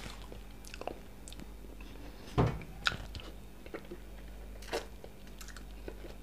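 Close-up chewing and wet lip smacks of soft food, mashed potatoes and chicken in creamy sauce. Scattered short clicks and smacks, the loudest about two and a half seconds in.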